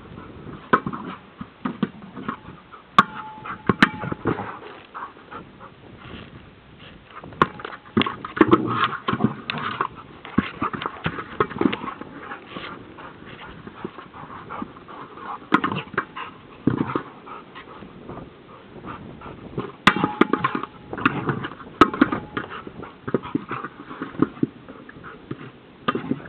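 A border collie nosing and pushing a nose ball across grass: irregular sharp knocks and bumps as the ball is struck, with scuffling on the grass between them.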